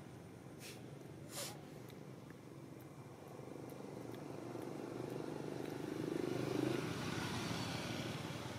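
A passing engine hum that swells over a few seconds to its loudest about two-thirds of the way through, then fades. Two short clicks come about a second in.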